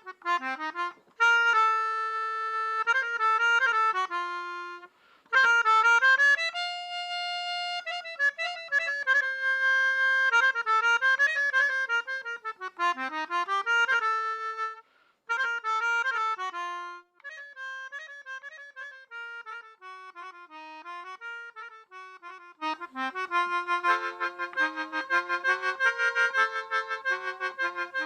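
Music played on a free-reed instrument of the accordion kind: a melody in short phrases separated by brief pauses, filling out into fuller chords near the end.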